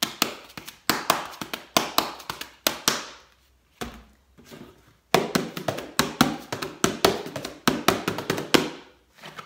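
Handheld tambourine struck against the hand in quick pairs of pops, each stroke with a short jingle ring. It plays as a rhythm in two runs, with a pause of about two seconds in the middle.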